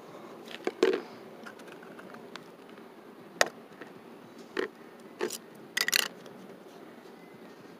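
Handling sounds: a few short, sharp clicks and knocks as a foam bowl and plastic salt and pepper shakers are picked up and set down on asphalt, the loudest near the start and a close pair near the end, over a steady low hum.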